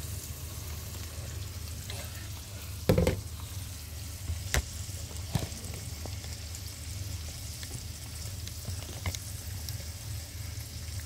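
Tofu frying in oil in a non-stick pan on a gas hob, a steady sizzle, the tofu turning golden. A few sharp knocks break in, the loudest about three seconds in.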